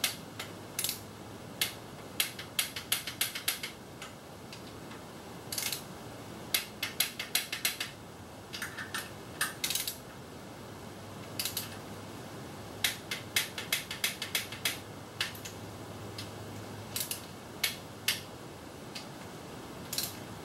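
Socket ratchet clicking in several quick runs of strokes with pauses between, as the motor-mount bolts on an engine are run down toward their 45 ft-lb torque.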